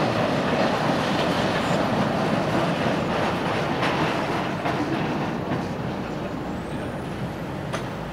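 A train of narrow-gauge slate wagons rumbling and clacking over the rails as it rolls away, with scattered sharp clicks from the wheels and couplings, fading slowly as it goes.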